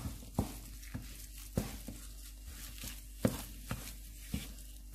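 Wooden spatula knocking and scraping on a nonstick pan as boiled mashed potato is stirred and pressed into fried onions and spices for the aloo paratha filling; a few irregular soft knocks, one every second or so.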